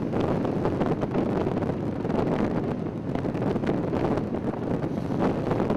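Wind buffeting the microphone of a camera filming from a moving car: a steady rushing noise full of quick gusty pops, over the car's running noise.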